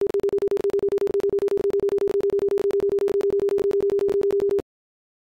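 Broadcast reference tone on a commercial's slate: a single steady tone, stuttering with many rapid dropouts and clicks, that cuts off suddenly about four and a half seconds in, leaving dead silence.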